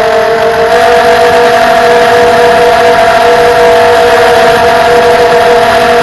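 FPV quadcopter's motors and propellers whining steadily, the pitch stepping up slightly about a second in.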